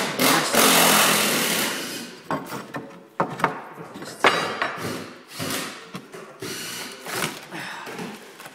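A hand tool scraping and knocking against old oak floorboards, working at the dirt packed in the gaps between them. There is one long scrape about half a second in, then a run of shorter scrapes and sharp knocks.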